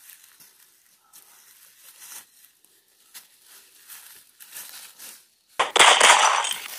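Footsteps crunching through dry fallen leaves, a step every half second to a second. Near the end comes a much louder crackling rush of leaves lasting about a second.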